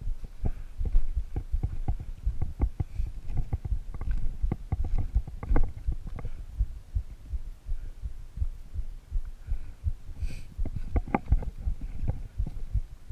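Irregular low thumps and knocks from footsteps over a dry creek bed while a bike is carried, with the microphone jostled by the walking.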